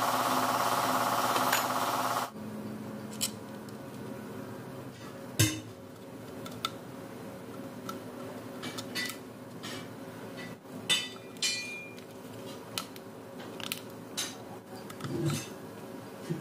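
A loud, steady machine noise cuts off suddenly about two seconds in. It is followed by a scattering of sharp plastic clicks and knocks as the wiring-harness connectors on the engine control unit are unlatched and handled, over a faint steady hum.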